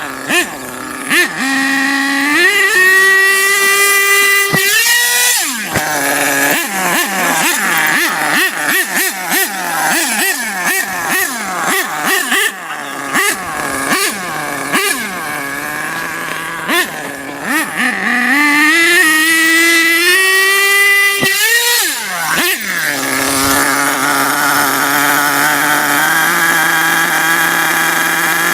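Radio-controlled car's motor revving up to a high whine and dropping off twice, with a run of quick throttle blips rising and falling in between, then running at a steady pitch for the last few seconds.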